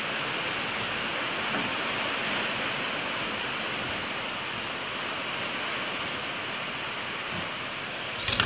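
Steady rain falling, an even hiss with no break. Just before the end comes a quick cluster of small metal clicks as the chrome cigarette lighter is handled.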